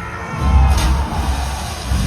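Loud action music from the stunt show's sound system, with a pounding bass beat.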